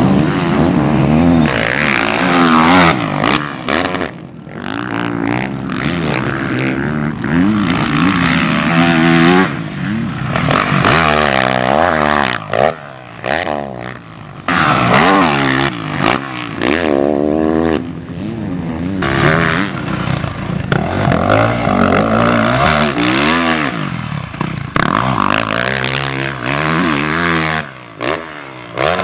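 Yamaha YZ450F single-cylinder four-stroke motocross bike engine revving hard through its gears as it is ridden round the track. Its pitch climbs and falls again and again, with short drops where the throttle is shut.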